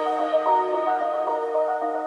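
Background music: a slow melody of single notes changing pitch every half second or so over held tones, with no beat.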